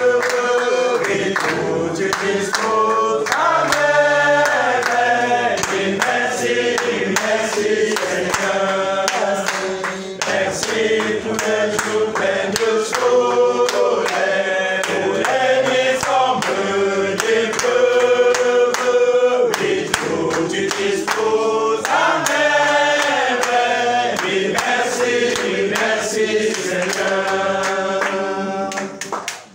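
A congregation singing a worship song together in unison, with hand clapping in time. The singing stops just before the end.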